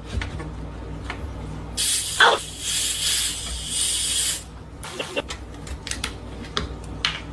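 Carbonated soda hissing and spraying for about two and a half seconds, with a sharp crack as it starts; small clicks and knocks come before and after.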